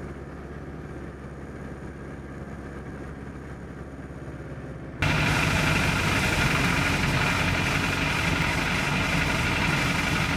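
Piper J-3 Cub's engine and propeller running steadily in flight, heard inside the small cabin. About five seconds in, the sound jumps abruptly louder and hissier and stays that way.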